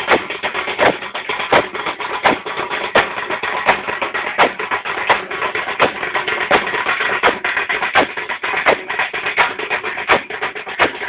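Loud music driven by a heavy, steady drum beat, one strong hit about every 0.7 seconds, over a dense, crashing wash of sound.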